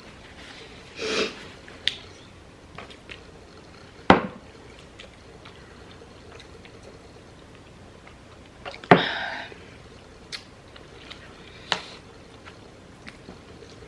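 Eating a spicy seafood boil by hand: shrimp and crab shells peeled and snapped, wet saucy squishes and chewing. Scattered small clicks, with a sharp snap about four seconds in and a louder crunch just before nine seconds.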